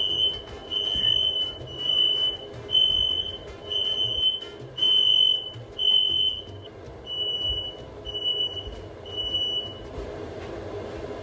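Smoke alarm beeping, one high-pitched tone repeated about once a second, set off by smoke from the oven. The beeping stops about ten seconds in, leaving a low hum.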